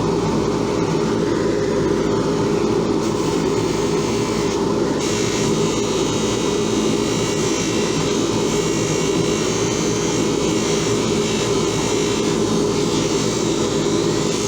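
Electric buffing wheel running steadily, polishing a pair of steel pliers, with a constant motor hum and a hiss that shifts a little as the work is pressed to the wheel.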